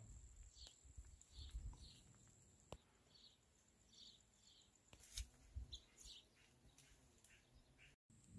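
Faint bird chirping: a short call repeated about twice a second, then a quicker run of chirps later on. Under it a thin steady high tone and a few low rumbles, the loudest about a second and a half in and again about five seconds in.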